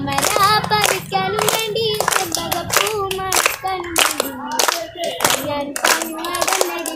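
A child singing a Malayalam song while a group of children clap along in a steady rhythm, about three claps a second.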